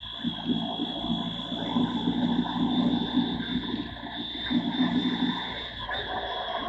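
Motorcycle riding at about 30 mph on a wet highway: the engine running, under wind and wet-tyre road noise. A steady high-pitched whine sits over it.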